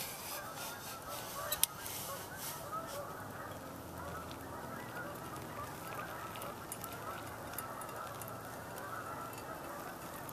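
A flock of geese honking, many short calls overlapping throughout, with a sharp click about a second and a half in.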